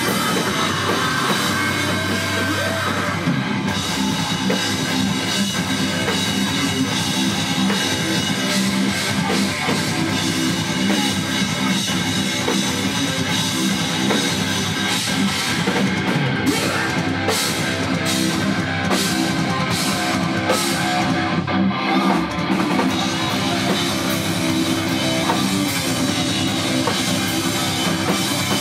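Live heavy rock band playing loud, with distorted electric guitar and a full drum kit with cymbals. Past the middle, the high end breaks up for several seconds into a series of short, evenly spaced hits with gaps between them, then the full sound drives on.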